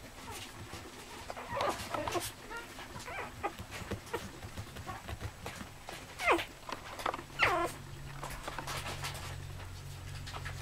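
Young spitz puppies whimpering and squealing in thin, high cries that slide down in pitch, the two loudest coming a little past the middle.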